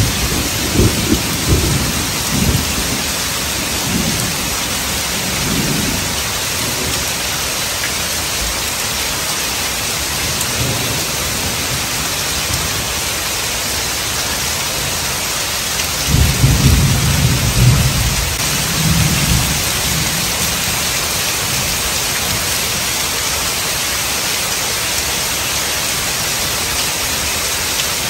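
Heavy rain pouring steadily, with thunder rumbling twice: once in the first few seconds and more loudly about sixteen seconds in, dying away over a few seconds each time.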